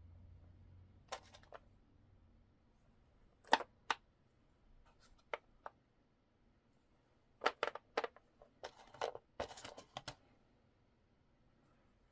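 Beads and beading tools being handled on a work surface: scattered light clicks and clinks, some single and some in quick little clusters.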